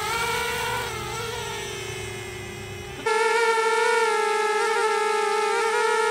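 Eachine Blade 185 mini quadcopter's four brushless motors and propellers whining in flight, a steady high-pitched whine that wavers slightly with throttle. About three seconds in it suddenly gets louder.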